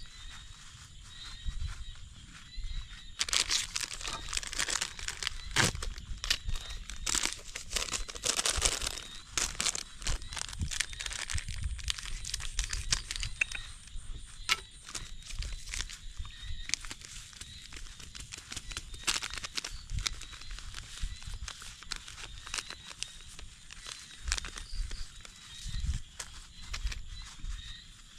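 Rustling and crackling made of many small irregular clicks, busiest for several seconds early on and then thinning out.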